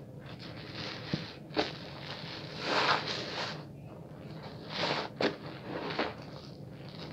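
Wet bar soap being rubbed and lathered, with soft rubbing swishes that swell twice, around three seconds in and about five seconds in, and a few sharp clicks between.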